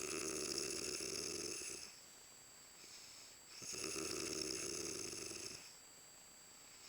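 A woman snoring loudly in sleep: two long snores of about two seconds each, one at the start and one about three and a half seconds in, with quieter breathing gaps between.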